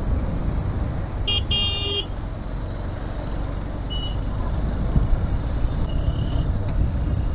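Riding noise of a Honda Hornet 2.0 motorcycle in city traffic: a steady low rumble of wind and road on the camera microphone. A high-pitched vehicle horn honks twice in quick succession about a second and a half in.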